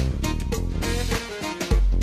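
Instrumental background music with a moving bass line and a beat.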